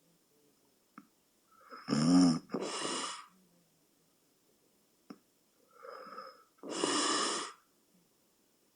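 A person snoring in sleep, two breaths: about two seconds in a loud, low, buzzing snore followed by a breathy rush of air, then about six seconds in a softer snore followed by another breathy rush. Faint clicks fall between the breaths.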